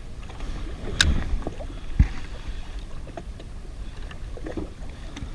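Wind rumbling on the microphone and choppy water around a drifting jet ski, with a sharp click about a second in and a heavy low thump a second later.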